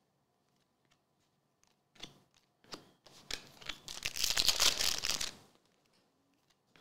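Chrome trading cards handled in a stack, sliding and scraping against one another as they are flipped through: a few light clicks about two seconds in, then a couple of seconds of rustling.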